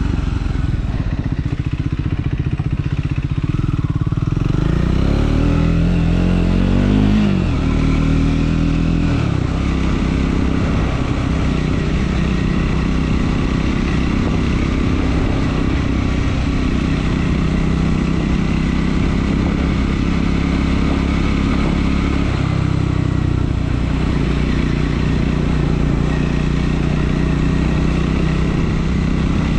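Triumph Scrambler 400 X's single-cylinder engine running under way: the revs climb for a few seconds, drop sharply about seven seconds in at a gear change, then hold fairly steady, with another change in engine note a little past twenty seconds.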